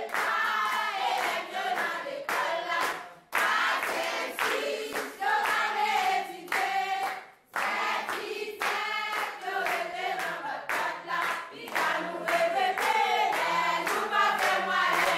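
A class of schoolchildren singing together as a group, clapping in time, breaking off briefly twice between phrases.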